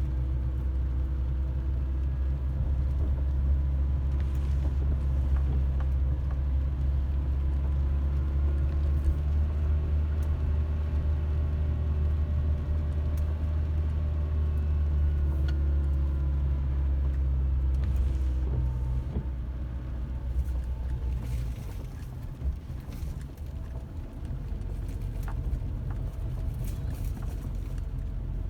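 A car on the move: a steady low engine and road rumble that eases noticeably about three quarters of the way through.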